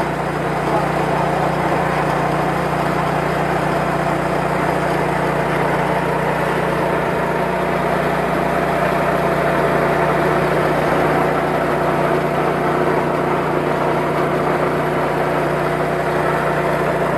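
Small engine driving a KD 500 WG mini rice-milling machine, running steadily while it mills grain, with a steady hum.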